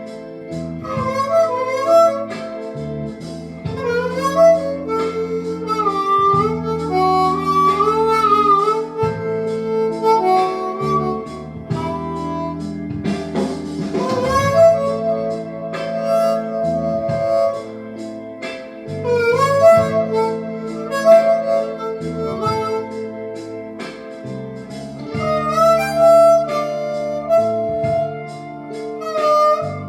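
Blues harmonica playing bending, sliding melodic phrases over sustained backing chords.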